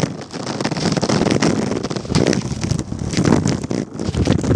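Scooter wheels rolling over rough concrete and gravel, a steady rumble full of small clicks, with wind buffeting the microphone.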